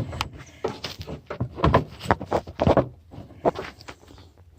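A quick run of irregular knocks and clunks: hand work wedging something in to hold an add-on electric fan back from the radiator under a truck's hood.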